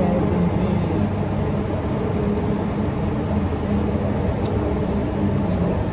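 Passenger train running, a steady low rumble with a faint hum, heard from inside the carriage.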